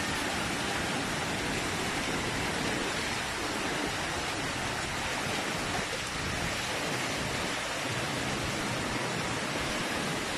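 Typhoon rain and wind: a steady, even rushing noise of heavy driving rain with the storm wind, holding level throughout without a break.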